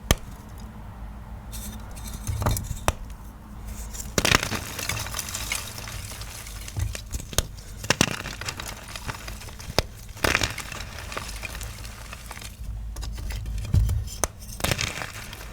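Small blocks of dyed gym chalk (magnesium carbonate) being crushed: crisp crunches and sharp cracks come in bursts every couple of seconds, with dry crumbling between them.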